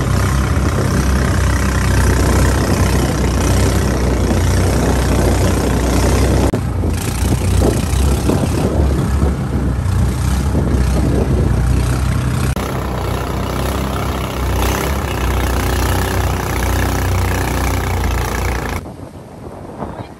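Small fishing boat's engine running steadily under way, with water churning along the hull. The engine cuts off about nineteen seconds in.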